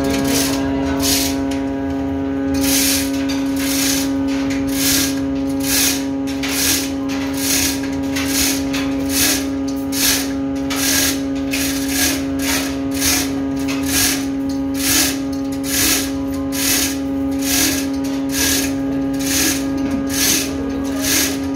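Manual chain hoist being worked in steady strokes, each stroke a short ratcheting rattle, about two a second, as it hauls on kinked anchor chain. A steady machinery hum runs underneath.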